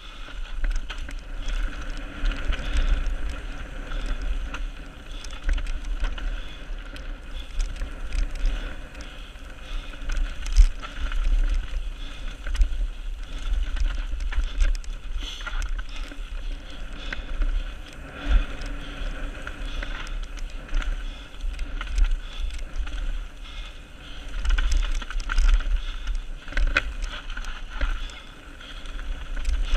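Transition Patrol full-suspension mountain bike descending a rough dirt trail at speed, heard from an on-board camera: a steady, uneven low rumble and tyre noise on dirt, broken by frequent clicks and rattles as the bike goes over bumps.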